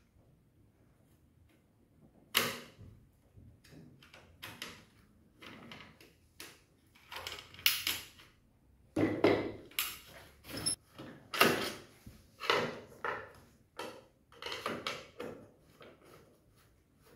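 Aluminium frame sections being handled and fitted together on a wooden workbench: irregular metallic clicks, knocks and clatter, starting about two seconds in.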